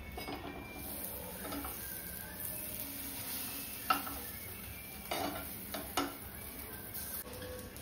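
Burger buns sizzling in butter in a non-stick frying pan, while a metal spatula scrapes under them and clicks against the pan a few times in the second half.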